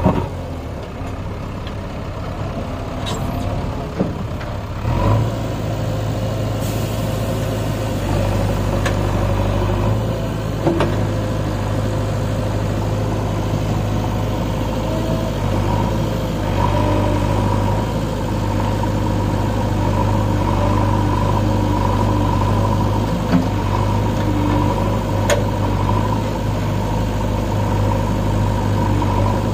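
JCB 3DX backhoe loader's diesel engine running steadily, growing louder about five seconds in as the machine works, with a few short clicks and knocks along the way.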